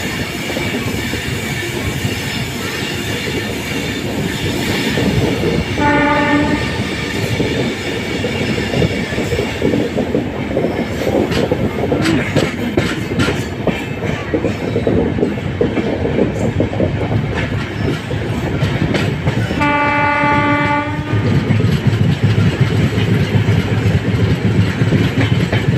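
Express train running along the track, heard from aboard, with steady rumble and wheel noise on the rails. The locomotive horn sounds twice: a short blast about six seconds in and a longer one at about twenty seconds. The rumble grows louder near the end.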